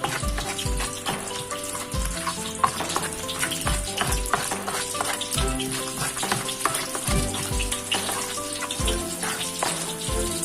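Pieces of ginger frying in hot cooking oil, sizzling with many small crackles, over background music with a low beat about every second and a half.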